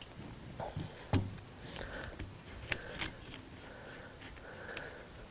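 A 1000-grit whetstone being handled and set down onto its holder on a stone slab: a knock about a second in, then a few faint clicks and taps.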